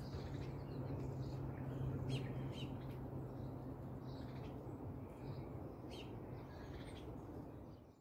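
Small birds chirping over a steady low background hum, with a few short sharp calls about two seconds in and again near six seconds.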